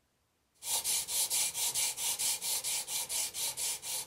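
Carbon-fibre part rubbed back and forth by hand on sandpaper, a rhythmic rasping scrape of about five strokes a second that starts suddenly about half a second in.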